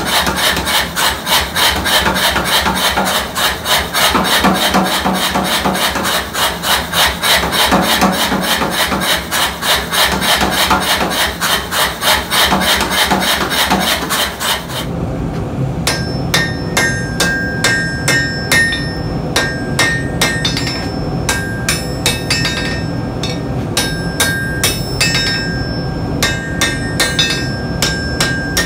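A power hammer pounds a red-hot steel bar with rapid, evenly spaced blows. About halfway through it gives way to irregular hand-hammer blows on hot steel over an anvil, each one ringing, over a steady low hum.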